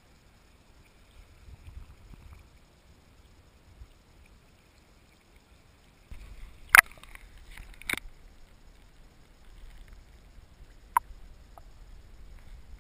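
Muffled handling and rustling noise from a GoPro in its waterproof housing as it is carried and lowered, with a low rumble that picks up about halfway through. Two sharp knocks about a second apart are the loudest sounds, and a smaller one comes near the end.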